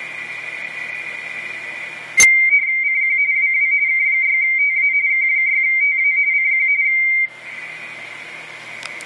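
Radio teletype (RTTY) signal on 10 metres heard through an ICOM IC-7410 receiver: a warbling pair of tones around 2 kHz alternating rapidly in band hiss. About two seconds in there is a click, then a stronger station's two-tone warble comes in loud for about five seconds and cuts off, leaving the fainter warble in hiss.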